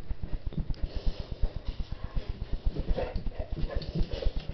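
Dogs panting and snuffling during play: a fast, even run of soft low huffs.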